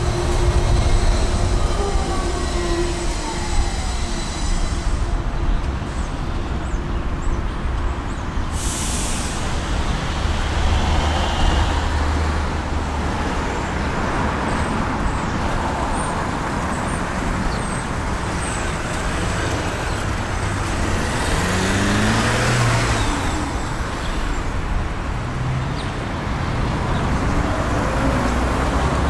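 City street traffic: cars, buses and trucks passing with a steady engine and tyre rumble, swelling as louder vehicles go by around ten and twenty-two seconds in, with a short hiss about nine seconds in.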